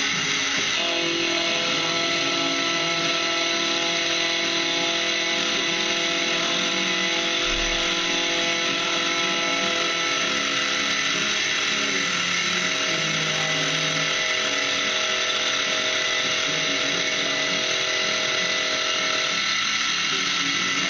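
Bench-top milling machine running, its end mill cutting a row of clamped knife bolster blanks as the table is fed: a steady motor and spindle whine over an even cutting noise.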